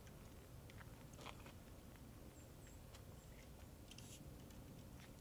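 Near silence: faint low background rumble with a few soft clicks and rustles, from a strand of C7 LED Christmas lights being handled.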